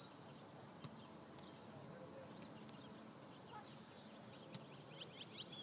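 Near silence: faint outdoor ambience with a few faint clicks, and a quick series of faint high chirps near the end.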